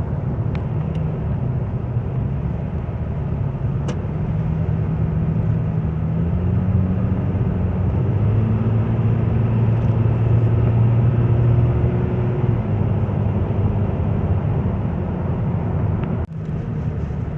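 Car engine and road noise heard from inside the cabin while driving uphill: a steady low drone whose engine hum shifts in pitch around the middle, with a brief break near the end.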